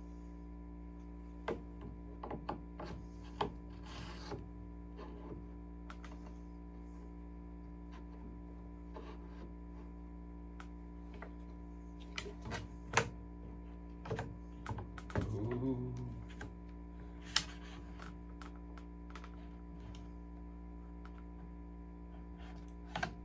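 Irregular small metallic clicks and taps as the bolt of a Savage .17 HMR bolt-action rifle is handled and fitted back into the action, over a steady background hum. One sharper click comes a little past the middle.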